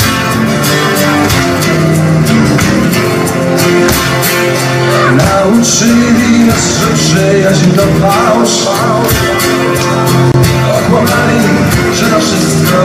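Live acoustic rock band: two acoustic guitars strumming over steady cajón hand percussion. A man's singing voice comes in about five seconds in.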